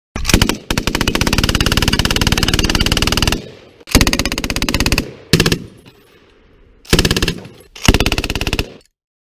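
British Browning Mark II .303 aircraft machine gun firing full-auto: one long burst of about three seconds, then four shorter bursts, each a rapid, even stream of shots.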